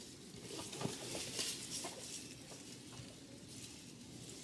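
Faint handling sounds of gloved hands and a knife working the innards of a rabbit carcass: a few small soft clicks and rustles in the first couple of seconds, then only low background noise.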